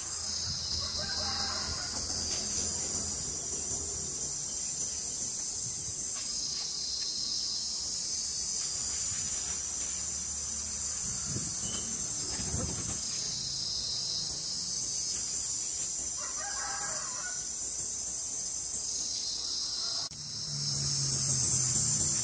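A loud, pulsing chorus of insects that swells and fades about every six and a half seconds. A rooster crows faintly twice, about a second and a half in and again near sixteen seconds.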